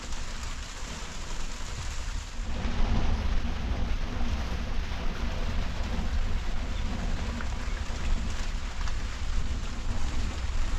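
Steady heavy rain falling, with a deep rumble that grows louder about two and a half seconds in and carries on.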